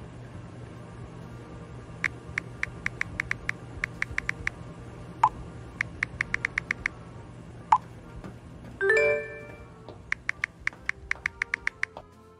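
Rapid runs of tapping clicks from a tablet's on-screen keyboard, broken by two short pops and a brief chime about three-quarters of the way through, over a steady low hum.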